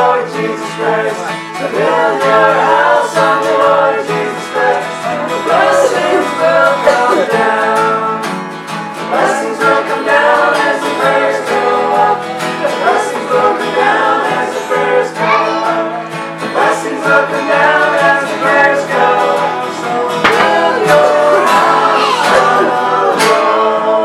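Voices singing along to a plucked guitar in a country or bluegrass style.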